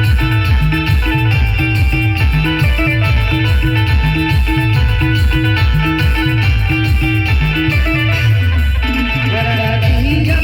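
Timli dance music from a live band: a fast, steady bass-and-drum beat under a plucked, guitar-like lead melody. The beat breaks off near the end.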